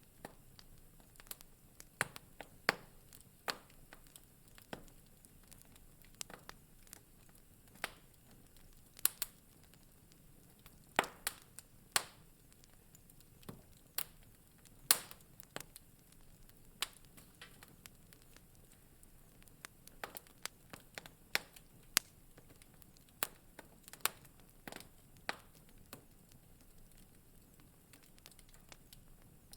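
Wood fire crackling in a fireplace: irregular sharp pops and snaps over a faint steady hiss, with a few louder cracks among them.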